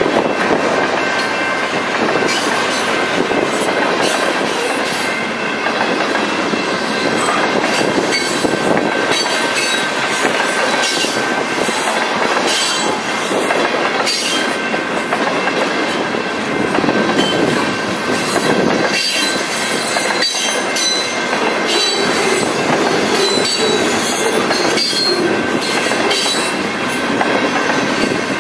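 Covered hopper cars of a freight train rolling past close by: a steady rumble of steel wheels on rail, with irregular clicks and knocks and a thin, high, steady squeal from the wheels.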